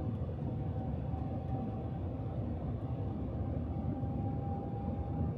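Cabin noise inside the Shanghai Maglev train accelerating past 230 km/h: a steady low rumble with a faint high whine that creeps up in pitch.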